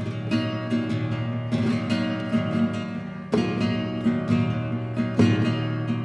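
Flamenco guitar playing a contemporary flamenco rhumba: sustained picked notes over a bass line, broken every second or two by sharp, loud strummed chords.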